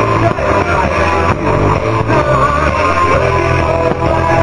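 Loud rock music with electric guitar.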